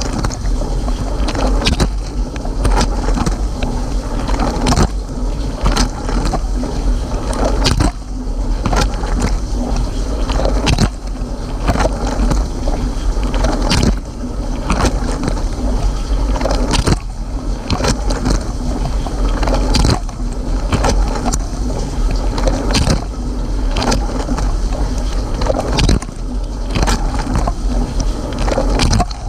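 Water spraying and splashing inside a Cylinda dishwasher during its rinse cycle, heard from inside the tub over a low hum. The sound swells and dips in a regular beat about every three seconds.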